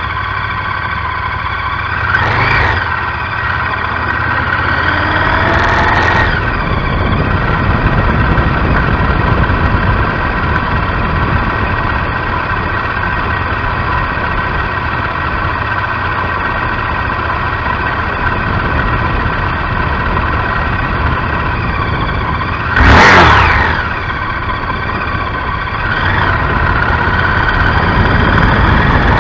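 Honda Varadero XL1000's V-twin engine running steadily while riding, heard from a bike-mounted microphone along with wind and road noise. Short swells come a few seconds in, and a brief, louder rush comes about three-quarters of the way through.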